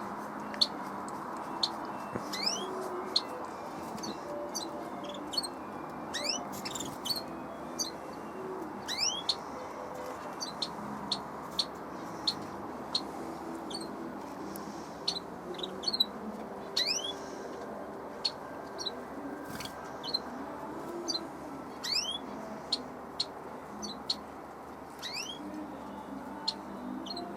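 Small birds chirping: many short, sharp high calls, some of them quick rising sweeps, coming irregularly throughout over a steady low background hum.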